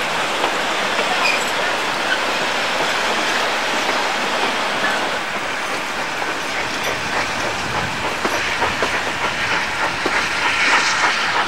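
Passenger train coaches running along the track, heard from inside a coach: a steady rumble and rattle of wheels on rail, with scattered clicks over the rail joints that come more often in the second half.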